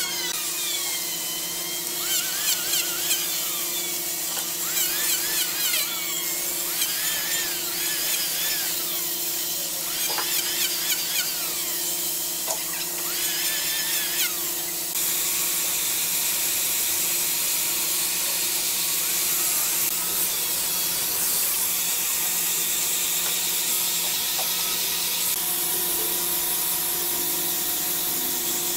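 Electric hand planer running and cutting along the edge of a thick solid-wood slab, its pitch sagging and recovering with each pass. About halfway through it gives way to the steadier, even noise of a handheld power sander working the wood.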